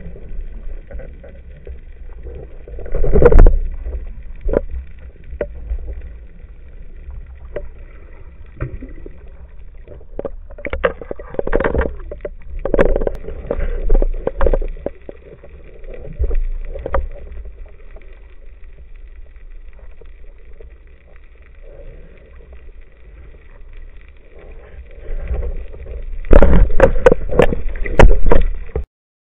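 Muffled water noise picked up by an underwater camera: a low steady rumble with scattered knocks and clicks, and louder bursts of water movement as a speared bluefish is handled. The sound cuts off suddenly near the end.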